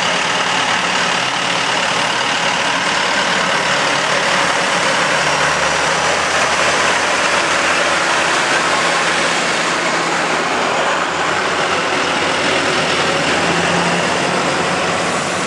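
Farm tractor engines running hard at a tractor pull: a loud, steady engine drone.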